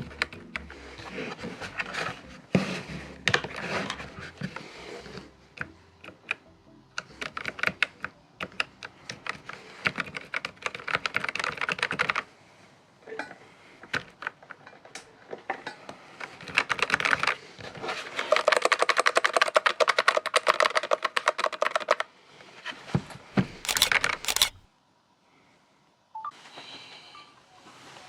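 Typing on a Redragon BS8772 wireless low-profile mechanical keyboard: rapid key clicks in runs of a few seconds each with short pauses between, and a few louder single clicks near the end.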